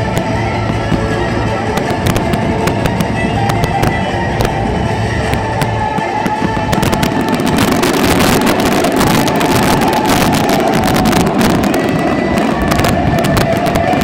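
Aerial fireworks going off in rapid succession, sharp bangs and crackles that grow much denser about halfway through, with music playing along.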